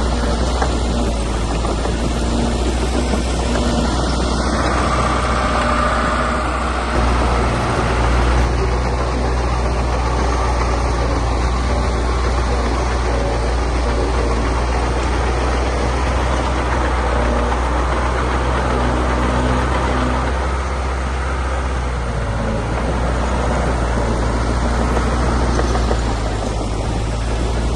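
Diesel engine of heavy earthmoving machinery running steadily, with a low hum and a slight surge about seven seconds in.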